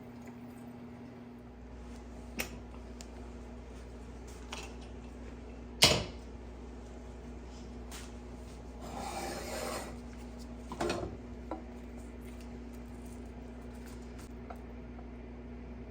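Kitchen handling sounds: a few sharp clicks and knocks of utensils or dishes, the loudest about six seconds in, and a short rustle around nine seconds, over a steady low appliance hum that comes in near the start.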